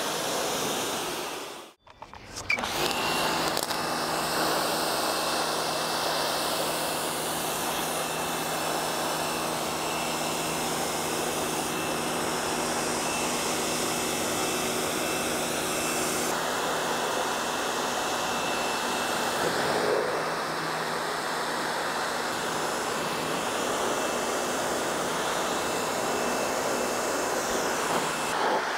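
Pressure washer spraying a pickup truck, a steady hiss of water jet with the machine's motor humming under it. The spray cuts out sharply for a moment about two seconds in, then resumes; the motor hum drops away about halfway through, leaving the hiss of the spray.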